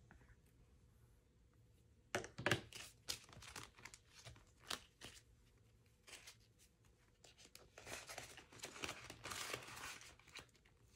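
Paper cash and cash envelopes being handled: after a quiet start, rustling and crinkling with light clicks, then a longer stretch of crinkling near the end as the bills and envelopes are shuffled.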